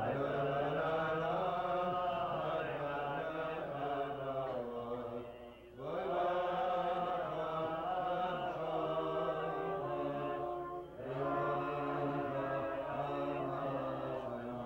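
A man singing a slow, chant-like Hebrew melody with guitar, holding long notes in phrases that break off briefly twice, about every five seconds.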